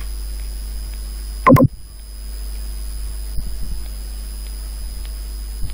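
Steady low electrical hum with faint hiss and a thin high whine, the background noise of the recording. About one and a half seconds in comes one brief pitched sound that falls in pitch, like a short hum from the voice.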